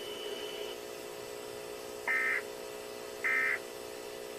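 Two short bursts of Emergency Alert System end-of-message data tones, the rasping digital warble of the EAS header code, a little over a second apart. They sit over a steady low hum.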